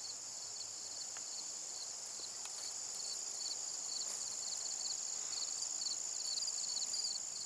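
Crickets and other field insects calling: a steady high-pitched trill with a continuous string of short, evenly repeated chirps beneath it.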